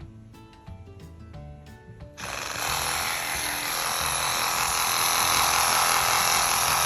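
Bossman BRS12-12M 12V cordless reciprocating saw starting up about two seconds in and running steadily and loudly, with background music playing.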